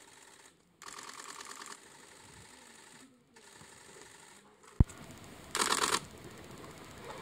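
Camera shutters firing in rapid bursts: a fainter burst about a second in and a louder one near the end, with a single sharp click just before it.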